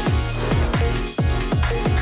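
Background electronic music with a steady beat of deep kick drums that fall in pitch, about two a second.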